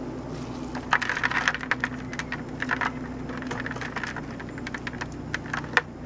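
Hands scraping and pushing loose clay soil into the gap around a buried plastic bucket: irregular gritty scrapes and small clicks of crumbling dirt, with one sharp click near the end. A steady low hum runs underneath.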